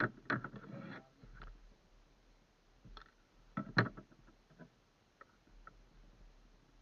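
Scattered knocks and clicks of gear being handled on a small fishing boat, loudest right at the start and again about three and a half seconds in, then fainter ticks.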